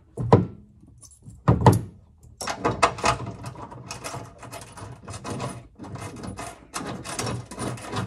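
Stainless steel tank straps and bolts being handled: two knocks, then quick continuous metallic clicking and rattling.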